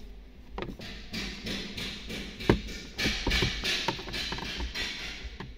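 Flathead screwdriver scraping and cutting at a plastic dashboard trim tab in quick repeated strokes, about three a second, with scattered clicks. A single sharp crack about two and a half seconds in is the loudest sound.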